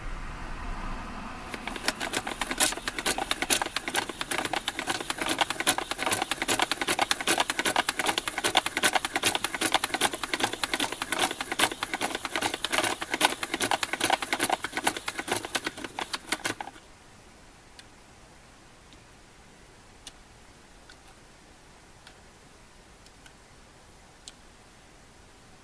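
Nintendo horse-racing toy's mechanism, worked by hand, rattling with rapid dense clicks for about fifteen seconds as the plastic horses advance down the track, then stopping abruptly. Near the end come a few light plastic clicks as the pieces are handled.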